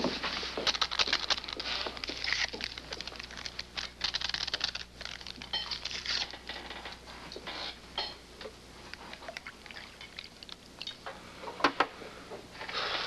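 Handling noise at a table: irregular small clicks, crinkles and rustles as objects are fiddled with and papers and cups moved, with a couple of sharper clicks near the end, over a faint low hum.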